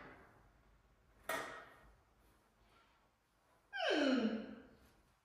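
A single knock about a second in, then a voice gliding down in pitch for about a second, like a drawn-out sigh.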